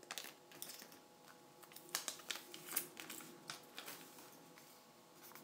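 Hands handling a small white plastic device wrapped in protective film: faint rustling with a few sparse, short clicks and taps, the sharpest about two to three seconds in.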